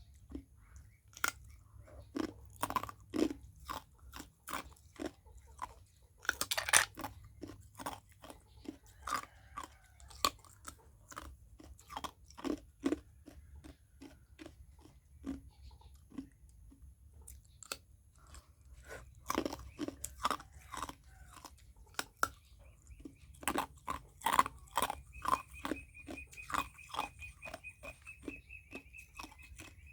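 Ice being bitten and chewed: a run of sharp, irregular crunches and cracks with short pauses between bites.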